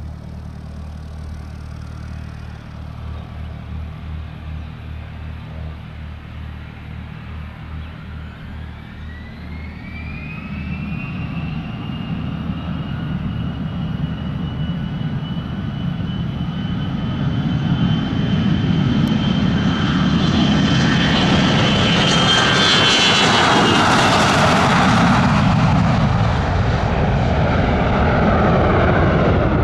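Gulfstream V business jet's twin Rolls-Royce BR710 turbofans, a low rumble at first. About eight seconds in they spool up to takeoff power, with a whine that rises in pitch and then holds steady. The roar grows much louder as the jet takes off and climbs past.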